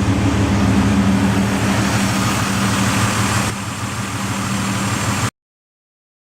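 2004 Ford Escape XLT's 3.0L V6 idling rough, heard at the exhaust: a steady, pulsing exhaust note. It cuts off abruptly about five seconds in.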